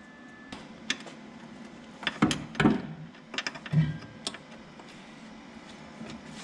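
Scattered metallic clicks and knocks of a bolt, nut and washers being handled and fitted by hand on a car's front suspension steering-lock stop, busiest in the middle.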